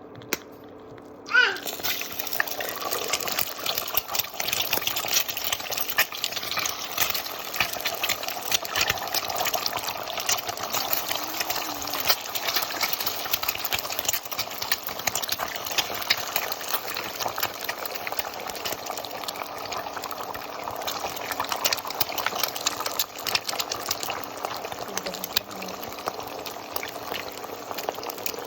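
Eggs frying in hot oil: a loud sizzle starts suddenly about a second in, then steady, dense crackling and spitting.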